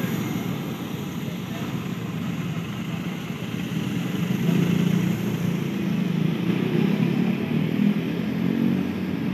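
Red airport fire-and-rescue pickup truck driving past close by, its engine and tyres over a steady low rumble that grows louder about halfway through. People's voices are mixed in.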